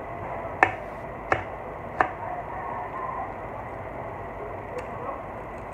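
Eating sounds at a meal: three sharp clicks about two-thirds of a second apart, then a fainter one later, over a steady low background hum.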